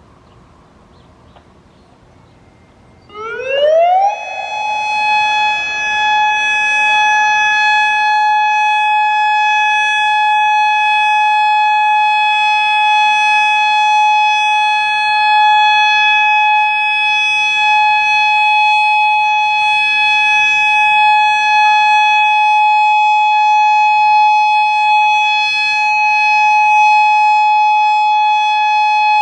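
Federal Modulator 6048 outdoor warning siren starting up about three seconds in, its pitch rising quickly over about a second, then holding one steady tone: the steady Alert signal of a monthly siren test.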